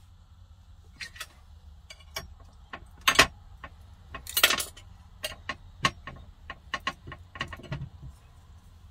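Metal kitchen tongs clicking and clattering against a plate as pieces of smoked turkey neck are turned and handled: a string of sharp taps, with two louder clatters about three and four and a half seconds in.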